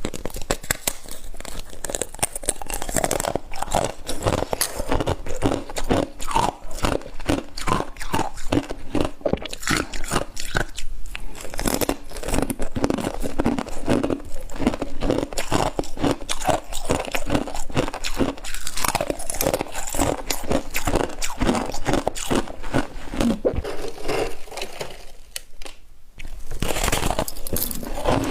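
Close-up chewing of crunchy frozen frost chunks: a dense run of crackling crunches as the ice is bitten and ground between the teeth, with a brief quieter lull near the end before the crunching picks up again.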